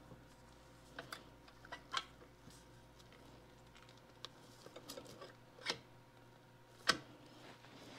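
Scattered small metallic clicks and taps as a steel cotter pin is worked and bent into place on the governor fork's pivot shaft inside the governor housing. The sharpest click comes about seven seconds in.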